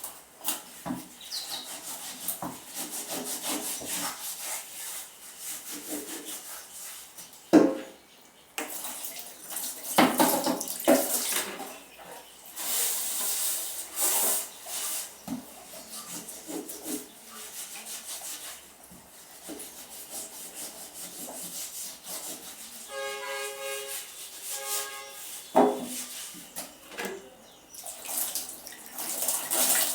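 Dishes and utensils being washed by hand without a running tap: water splashing, scrubbing and rubbing, with sharp clinks of utensils knocking together now and then. A short ringing tone sounds a little after twenty seconds in.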